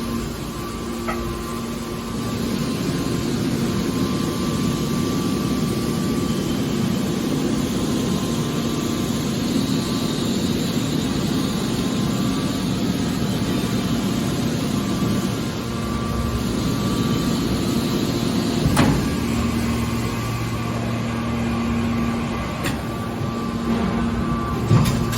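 Hydraulic scrap metal baler running, its pump and motor giving a steady mechanical hum, with a couple of sharp knocks in the second half.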